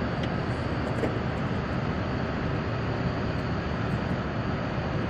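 Steady low rumbling noise with no rhythm or pitch, even in level throughout.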